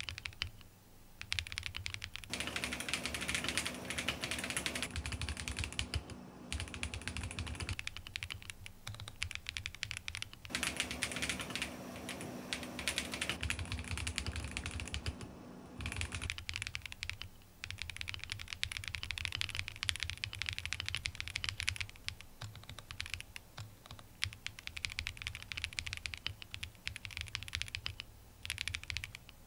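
Continuous fast typing on a KBDcraft Adam mechanical keyboard with a Lego-brick housing, lubed linear switches (Switch S² Engine) and dual-shot keycaps, its stabilizers given extra Permatex grease. The key clacks change in tone abruptly every few seconds as recordings through a dynamic mic and an iPhone mic alternate.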